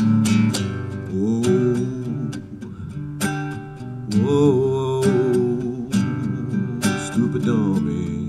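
Nylon-string classical guitar fingerpicked in a steady rhythm, with a man singing a few long, wavering held notes over it.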